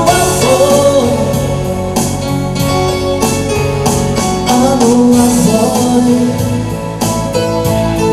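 Live reggae band playing: keyboards, guitar and drums, with a man singing long, drawn-out notes over the band.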